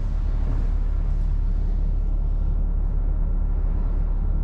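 Moored car ferry's machinery running: a steady low rumble with a faint, thin steady whine above it.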